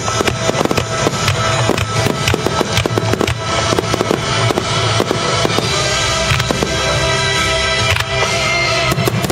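A rapid fireworks barrage: many shells and rising comets firing and bursting in quick succession, a dense run of bangs and crackles. Music plays throughout.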